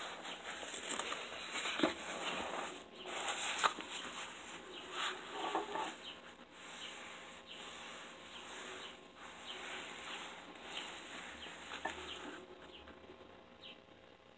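Rustling and flapping of a black neoprene shoulder brace as it is handled, unfolded and laid flat on a wooden table, with a few light knocks; it grows quieter near the end.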